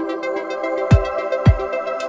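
Electronic music: a held synthesizer chord with two deep kick-drum hits about half a second apart.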